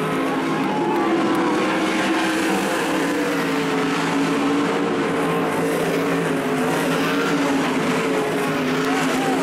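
410 sprint cars' V8 engines running at racing speed, several engine notes overlapping and rising and falling together in a steady, loud drone.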